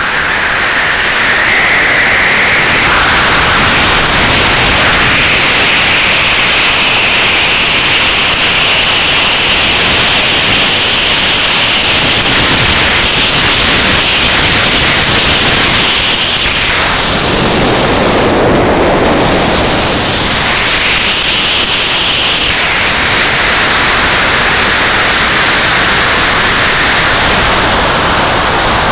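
Zip-line trolley running fast along the steel cable: a thin whine rises in pitch as speed builds and then holds steady, wavering and briefly breaking up about two-thirds through. Under it is a loud, steady rush of wind on the microphone.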